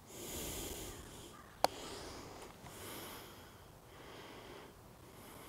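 A single sharp click of a putter striking a golf ball, about a second and a half in, amid a faint breathy hiss.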